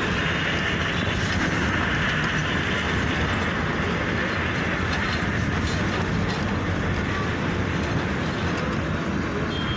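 Metro train running on its track: a steady rumble with rail noise.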